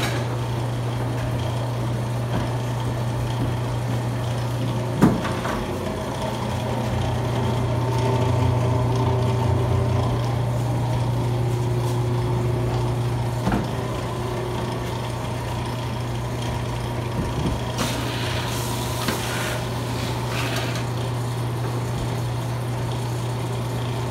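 Honey-extracting machinery running with a steady low hum. A sharp knock comes about five seconds in and another about thirteen seconds in, and there are a few short hissing bursts in the last third.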